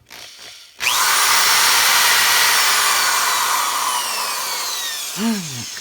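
Plug-in electric drill fitted with a 9/64-inch bit, starting suddenly about a second in and running steadily and loudly, then tapering off near the end.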